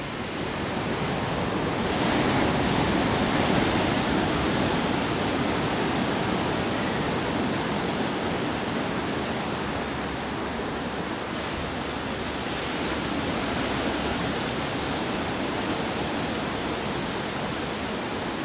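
Steady rushing of ocean surf, swelling about two seconds in and again a little past the middle.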